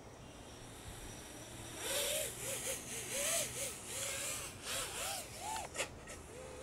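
Brushless motors and propellers of a 5-inch FPV racing quadcopter spinning up after take-off, a whine that rises and falls with each throttle punch over a rushing hiss of prop wash, with one sharp click near the end.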